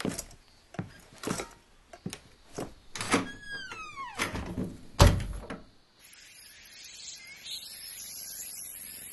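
A door creaking open with a falling creak and thudding heavily shut, after several light knocks and clatters of footsteps and gear. From about six seconds in there is a soft outdoor hiss with faint high chirps.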